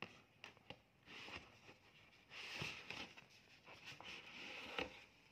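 Faint handling noise: soft rustling in a few short patches, with scattered light clicks, loudest a little past the middle.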